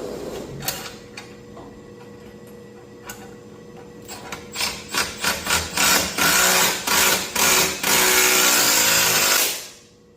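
Power drill with a 9/16 socket tightening the bolt of a boiler burner door hinge: several short trigger bursts starting about four seconds in, then a steady run of about three seconds that stops shortly before the end.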